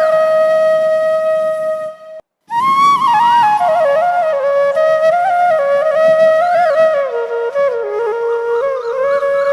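Background music: a solo flute melody of long held notes with sliding ornaments, broken by a brief silence about two seconds in before it resumes.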